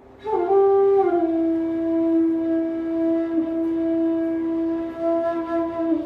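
Background music: a flute-like wind instrument holds one long note, stepping down slightly about a second in.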